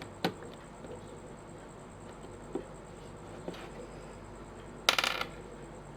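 Plastic pieces of a 5x5 puzzle cube clicking against each other as they are handled and fitted into place: a few single clicks, then a short rattling run of clicks about five seconds in.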